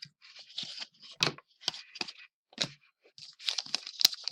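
Trading cards and a foil card-pack wrapper being handled: a string of irregular crinkles, light tearing sounds and card clicks.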